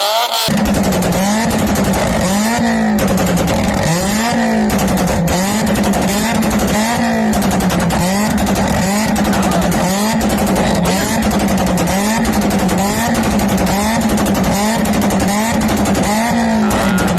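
Volkswagen car with a very loud exhaust, revving up and falling back over and over, about once a second, over a rapid rattling crackle.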